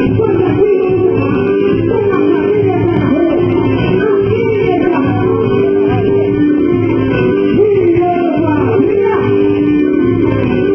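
Quadrilha junina music with a singing voice over plucked guitar, loud and continuous, with the treble cut off so it sounds dull and muffled.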